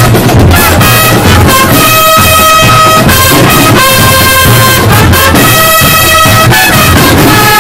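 Marching brass band of trumpets playing a tune in loud, held notes over a steady low beat.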